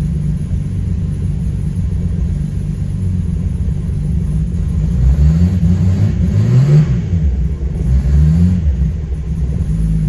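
Holden VL Turbo's RB30 turbocharged straight-six, running on E85, idling with a steady rumble. It is revved in three short blips about halfway through, the pitch rising and falling each time.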